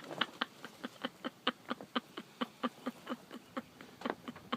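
A rapid, uneven series of short light clicks or taps, roughly five or six a second.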